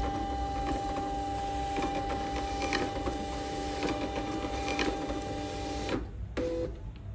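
Desktop thermal label printer printing a 100 × 150 mm shipping label: its feed motor whines steadily for about six seconds as the label advances out of the front, then stops. A short second whir follows near the end.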